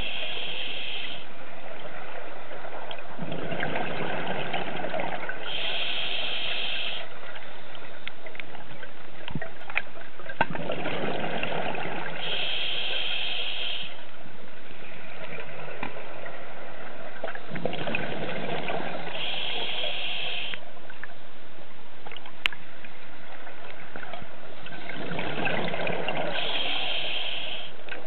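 A scuba diver breathing through a regulator underwater: about every seven seconds a rush of exhaled bubbles, alternating with the hiss of an inhale through the demand valve, four breaths in all.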